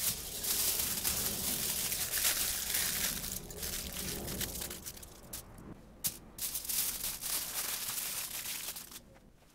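Aluminium foil crinkling and rustling as it is folded and scrunched around potatoes, with short pauses about five and a half seconds in and near the end.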